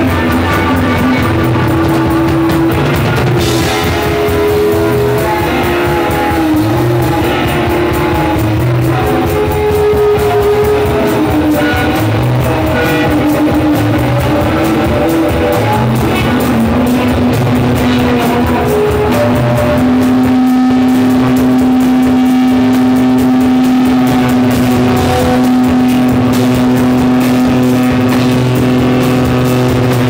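Live rock band playing loudly: electric guitars and a drum kit. About halfway through, a single low note is held as a steady drone under the drums.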